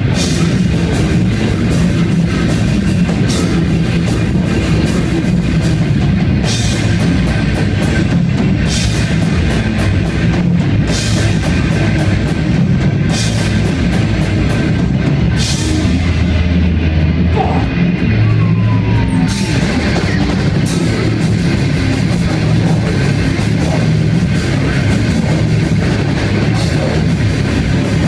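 Live band playing loud heavy rock, with drums, distorted guitar and repeated cymbal crashes.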